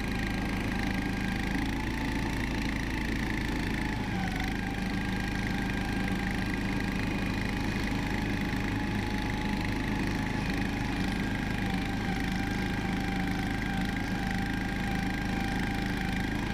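Engine of an IKUDZO motorized towing unit (motor-dog), a 20-horsepower machine, running at a steady speed while hauling a loaded sled through snow. The pitch dips briefly about four seconds in.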